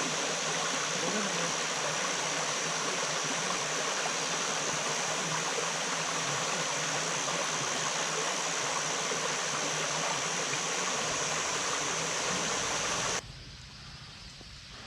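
Steady rush of a mountain stream running over rocks. About 13 seconds in it cuts off abruptly to a quieter low rumble.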